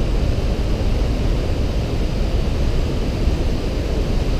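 Steady rushing roar of the Breitach river's torrent echoing between the rock walls of the gorge, deep and rumbling with a hiss above it.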